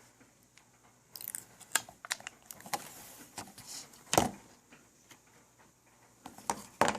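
Plastic clicks, snaps and rustling from handling a new LG Optimus L70 phone as its protective plastic is taken off. A sharp click comes about four seconds in and a couple more near the end.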